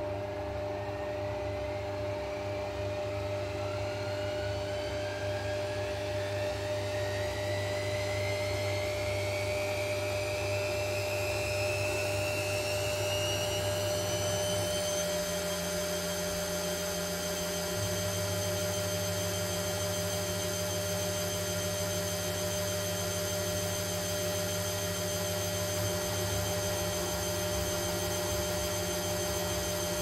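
Front-loading washing machine spinning a puffer jacket: the motor's whine rises steadily in pitch for about fifteen seconds as the drum speeds up, then holds steady at full spin speed over a constant low hum.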